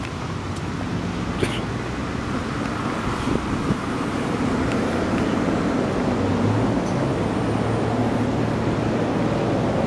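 Steady road traffic noise, with a vehicle's engine hum growing louder from about halfway through.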